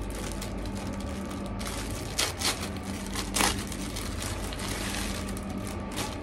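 Clear plastic packaging bag crinkling and rustling as it is handled and opened by hand, with a few louder crackles around the middle, over a steady low hum.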